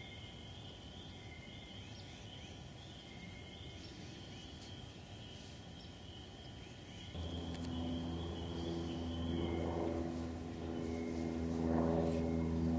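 Quiet outdoor ambience with a thin, steady high tone. About seven seconds in, a motor engine's low, steady hum comes in and grows louder.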